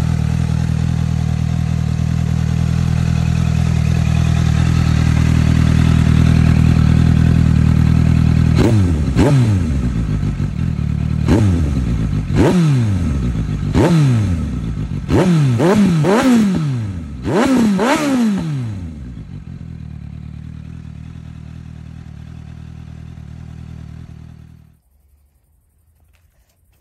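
Suzuki GSX-S750's inline-four running through a Shark aftermarket silencer, most likely with its dB-killer baffle fitted. It runs steadily, then is revved in about eight quick throttle blips, several in close pairs, each rising and dropping back. It then settles to a quieter idle and is switched off about 25 seconds in.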